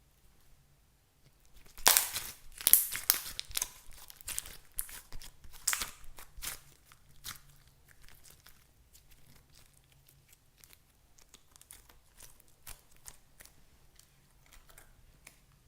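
Crinkling, tearing sounds in quick irregular strokes, loudest from about two to seven seconds in, then thinning to scattered light clicks and taps.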